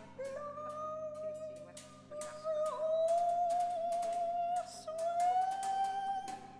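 A soprano voice hums one long, soft note that wavers and slowly rises in pitch. It breaks once about two-thirds of the way through, then carries on rising. Light clicks and taps of percussion are scattered through it.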